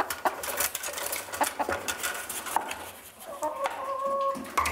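Caged brown laying hens clucking, with frequent sharp taps and clicks as feed is tipped into their metal feeder trough. Near the end there is one drawn-out, steady call.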